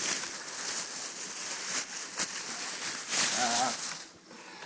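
Rustling and handling noise with several sharp clicks, like toy packaging being picked up and moved about. A short wavering voiced sound comes a little past three seconds in.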